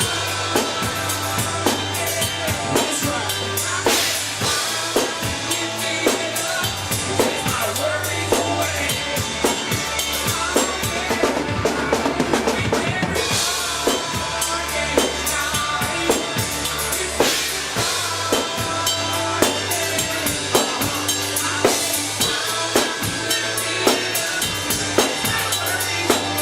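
Live band playing a song at a sound check, with the drum kit to the fore keeping a steady beat over held low notes and pitched instrument lines.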